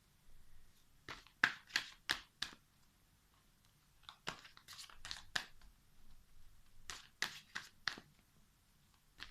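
Tarot cards being drawn and laid down on a table: three short runs of crisp card flicks and slaps, several in quick succession each time.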